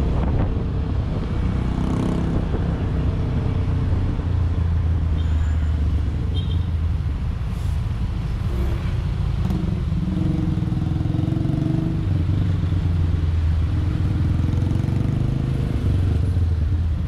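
Motorcycle engine running while riding in traffic, heard from the bike's own camera together with road and wind noise. The engine note rises for a couple of seconds about ten seconds in.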